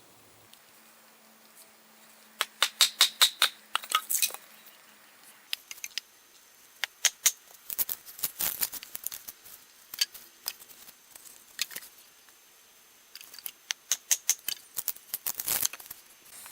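Repeated sharp hammer strikes in quick runs of several blows, driving a small forged metal wedge into the wooden handle of a froe.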